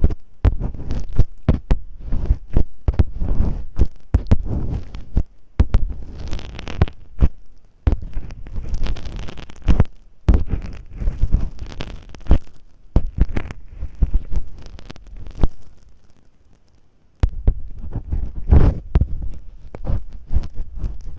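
Masking tape worked against the microphone to imitate ear cleaning: irregular crackling, rustling and scratching with muffled thumps. The sound dies away to a short lull about sixteen seconds in, then resumes.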